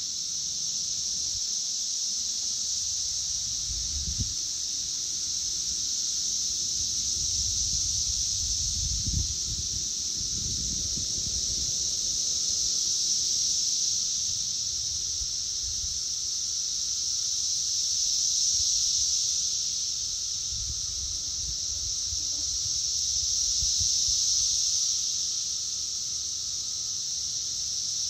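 A chorus of periodical cicadas: a steady high-pitched drone that slowly swells and fades in waves.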